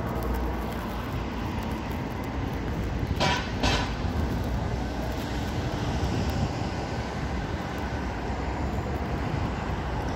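Steady low rumble of city traffic noise, with two brief sharp higher-pitched sounds a little over three seconds in.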